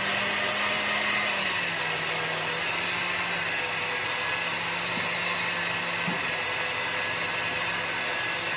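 KitchenAid tilt-head stand mixer running on high with its wire whisk, whipping cream in a stainless steel bowl: a steady motor hum whose pitch drops slightly about a second and a half in.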